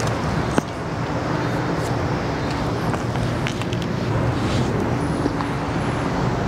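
Steady road traffic noise from the bridge overhead, an even rush with a faint tyre hum, and one sharp click about half a second in.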